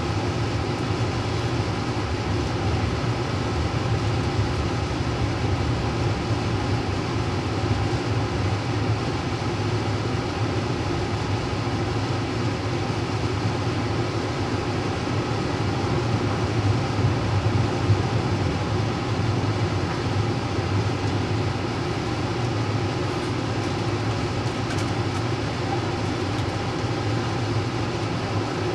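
Steady rumble of trains in motion: the passenger train rolling along while the cars of a long Canadian National freight train pass close alongside, heard from inside the passenger train's dome car.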